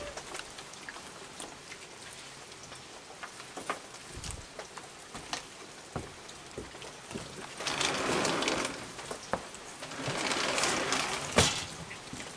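Steady rain hissing on a wooden deck, with scattered small clicks and knocks. Two louder rustling swells, each about a second long, come about eight and ten seconds in, and a sharp click follows the second.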